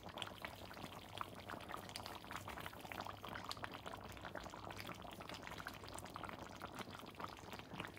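Thick curry sauce simmering in a pan on the gas, bubbling faintly with many small irregular pops.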